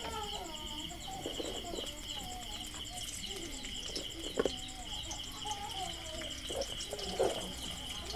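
Sliced onion and green chillies frying in oil in a steel kadai, with a faint crackle and two short knocks about halfway and near the end. Under it runs a steady high drone with chirps.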